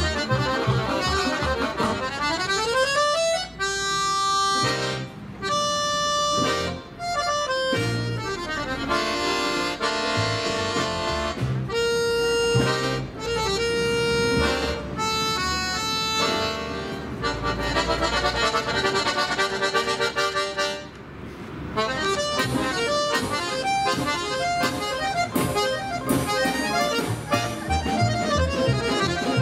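Russian folk-instrument orchestra playing: plucked domras and balalaikas with accordion and violin. Held chords through the middle, a brief drop in level about 21 s in, then quicker runs of notes.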